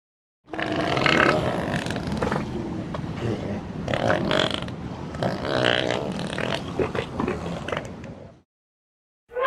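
Elephant calling for about eight seconds with a rough, grunting sound and a few short higher-pitched notes mixed in, stopping abruptly. After a brief pause, a trumpet call begins at the very end.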